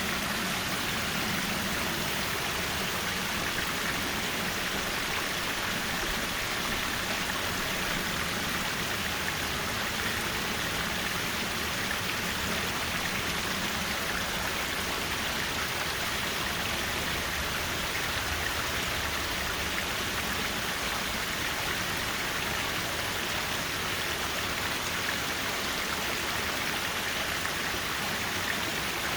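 Mountain valley stream running, a steady, unbroken rush of water.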